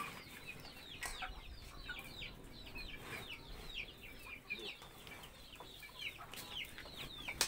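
Chickens calling, a run of short, high, falling calls several a second, with a couple of faint knocks.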